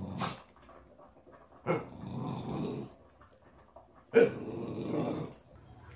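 English bulldog growling three times, each growl rough and about a second long.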